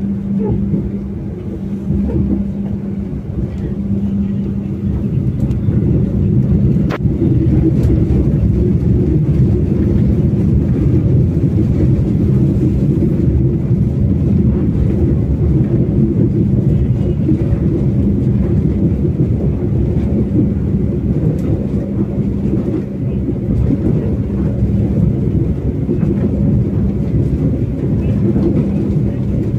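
Passenger train running: a steady low rumble with a constant hum, and a single sharp click about seven seconds in.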